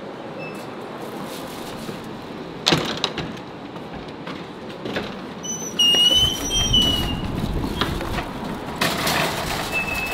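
Loaded wire shopping cart rolling and rattling, with a clank about two and a half seconds in and short high squeaks, the longest at about six seconds. The rolling grows louder and rougher from about six seconds in.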